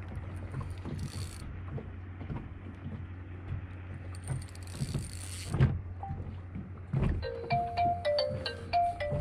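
Mobile phone ringtone, a repeating electronic melody of short clear notes, starting about seven seconds in, over a low steady hum and scattered small clicks.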